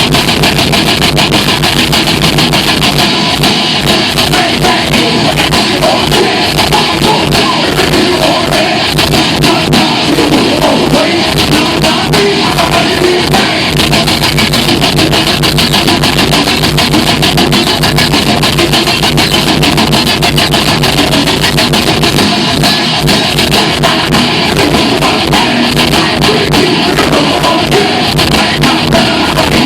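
Live heavy metal band playing loud, with electric guitars and a drum kit driving a dense, fast, unbroken wall of sound.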